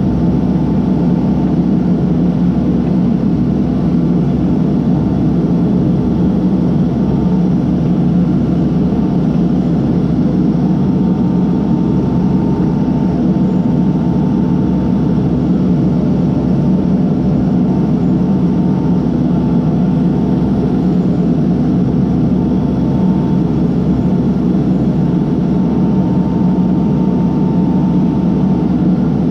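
Case backhoe's diesel engine running steadily under load, a constant loud drone with a faint high tone over it.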